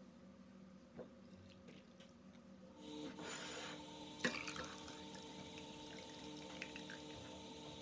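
Cloudy rinse water being poured off soaked split peas from one glass bowl into another, a trickling pour that starts about three seconds in. A sharp clink of glass on glass comes about a second later.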